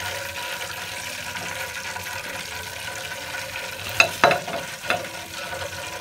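Fried chicken pieces sizzling in deep oil as they are lifted out in a wire skimmer. About four seconds in come three sharp clacks as the skimmer and chicken are set down on a plate.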